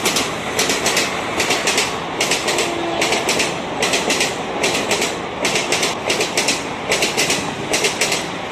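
Passenger train coaches running past, their wheels clicking over rail joints in quick groups of clicks, a group about every second or less, over a steady rolling rumble.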